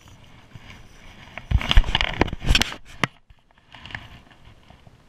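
Clothing and hand-handling noise rubbing against the body-worn camera's microphone as the angler works the rod and line. A loud burst of rustling and rubbing starts about a second and a half in and lasts about a second, followed by a sharp click a little after three seconds and softer rustling near the end.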